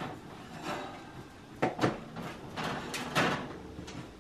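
Kitchen handling sounds: a few sharp knocks and clatters of objects being moved, with two quick pairs of louder knocks in the middle.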